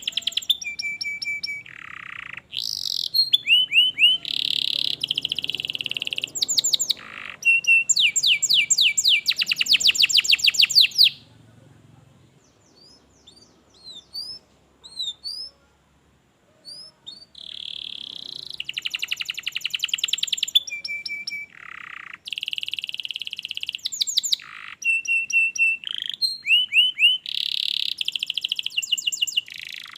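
Domestic canary singing long, rapid trills and rolling repeated notes. The song breaks off about twelve seconds in, leaving only a few faint chirps for several seconds, then resumes just as densely.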